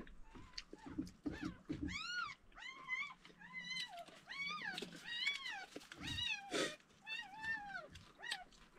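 Newborn puppies, born the night before, crying and squealing, a 'chiya chiya' sound. Many short, high cries rise and fall in pitch and follow one another quickly.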